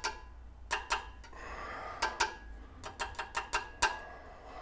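Metal parts being handled and clamped on a workbench: about a dozen light, irregular clicks and clinks, some with a short faint ring.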